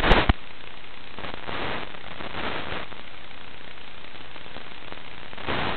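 Steady static hiss from an analog FPV recording's audio channel, with a loud crackle at the very start and hiss swelling louder a couple of times in the middle and again at the end.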